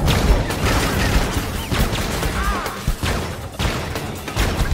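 A dense volley of gunfire, shot after shot in quick succession, with bullets striking metal machinery. A couple of short pitch glides sound among the shots.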